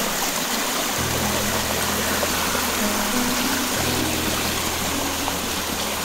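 A mountain stream rushing over granite rock in a steady, even hiss. Background music with held bass notes plays over it.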